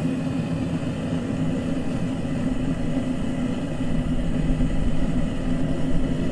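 Propane forge burner running with a steady rumbling hiss, a little louder and deeper from about four seconds in.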